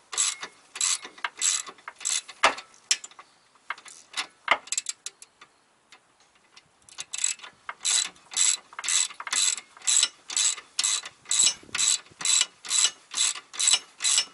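Hand ratchet clicking in quick back-and-forth strokes, about two a second, loosening the strut bolt at the steering knuckle while a wrench holds the other side. The strokes pause for a few seconds near the middle, with only a few scattered clicks, then resume at a steady pace.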